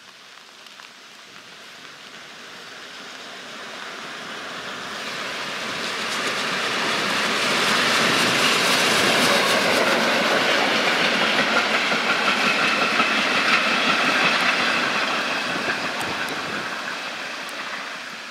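Class 52 steam locomotive 52 8141-5 approaching, passing close by and running away, with the rush and rail clatter of its wheels. It grows steadily louder, is loudest for several seconds in the middle, then fades.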